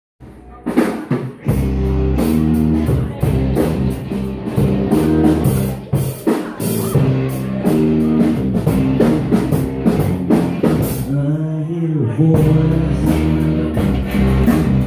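Live rock band playing an instrumental passage with drum kit, bass and guitar, starting about half a second in, with a short break about twelve seconds in.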